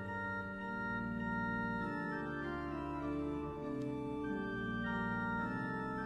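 Church organ playing a hymn tune in sustained chords, the harmony moving to a new chord about every second, with no singing.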